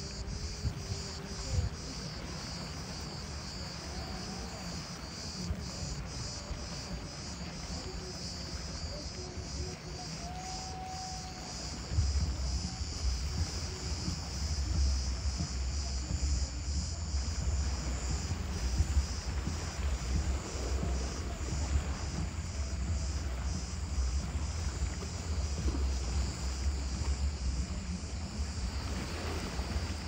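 Cicadas buzzing in a steady chorus that pulses evenly, about two or three pulses a second. From about twelve seconds in, wind buffets the microphone with a low rumble.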